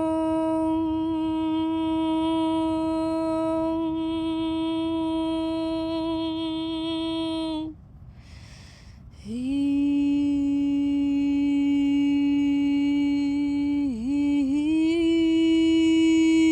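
A woman's voice humming long held notes as ceremonial toning: one steady note for about eight seconds, a breath in, then a slightly lower note that dips briefly and swells near the end.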